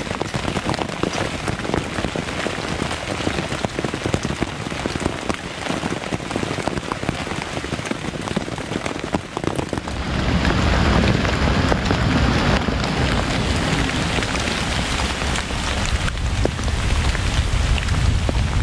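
Steady rain pattering on a tent flysheet, a dense hiss made of many small drop ticks. About ten seconds in, it turns louder and fuller, with a deeper rumble under the rush.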